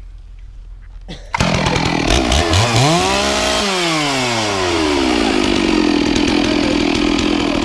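Chainsaw engine that cuts in suddenly about a second and a half in, its pitch climbing and then sliding down before it settles into a steady run, as under load while cutting wood.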